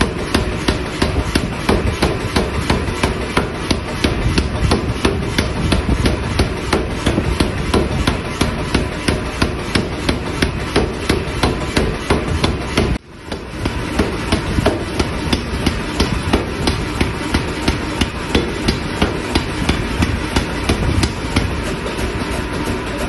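Power hammer pounding a red-hot steel bar in forming dies: a rapid, even beat of heavy blows, with a short break about halfway through.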